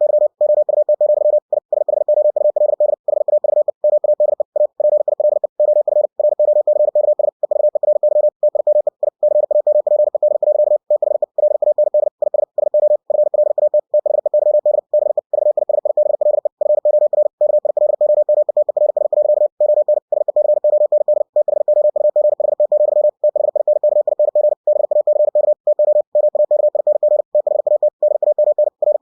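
Computer-generated Morse code (CW) sent at 60 words per minute: a single mid-pitched tone keyed on and off in very fast dits and dahs, with brief pauses between words.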